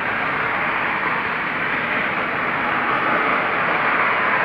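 Steady, loud rushing noise with no clear pitch, like a jet engine or a very high-pressure washer, whose source is unidentified.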